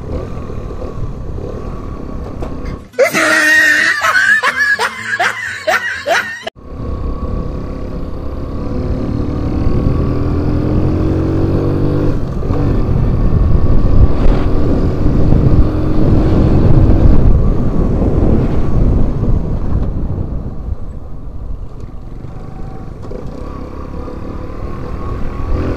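Small Docker C50 motorbike engine pulling the bike along, its pitch rising as it accelerates several times, under low wind rumble. About three seconds in, a burst of laughter is edited in for roughly three and a half seconds and cuts off sharply.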